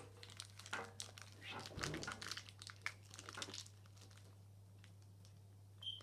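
Faint crinkling of a small plastic toy wrapper being handled: a flurry of small crackles that stops about three and a half seconds in.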